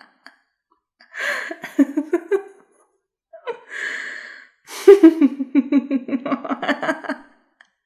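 A woman's evil, maniacal laugh in separate bursts with silent gaps between them: a short laugh, then a breathy in-breath, then a long, loud run of rapid ha-ha pulses starting about five seconds in.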